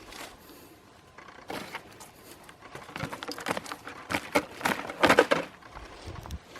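Irregular rustling and crackling of roadside trash and dry brush being handled, loudest between about three and five seconds in.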